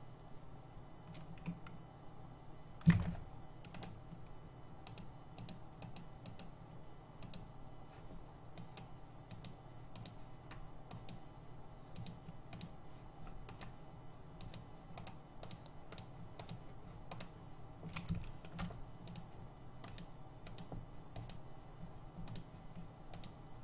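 Soft clicking of a computer mouse and keyboard, a few clicks a second, over a low steady hum, with a single louder knock about three seconds in.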